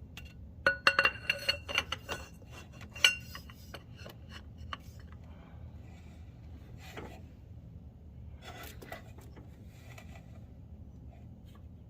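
Metal tools clinking and ringing against metal parts in a car's engine bay: a quick run of sharp clinks in the first three seconds, then a few fainter knocks and scrapes.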